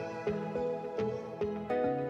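Soft background music: a gentle melody of evenly paced single notes, each struck and fading.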